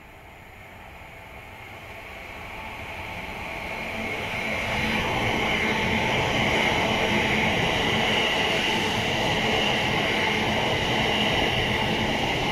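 Greater Anglia Class 720 electric multiple unit approaching and running past along the platform. Its wheel-on-rail rumble and hiss grow over the first four or five seconds, then hold steady and loud as the carriages go by.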